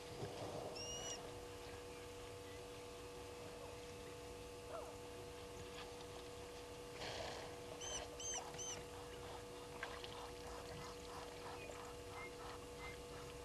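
Short high bird chirps at a waterhole, one about a second in and three quick ones about eight seconds in, with a run of rapid notes near the end. Splashing and pouring of water from African elephants drinking, over a steady hum.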